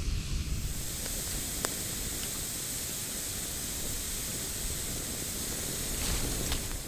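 Long log fire of white ash logs burning with a steady hiss and a few sharp pops.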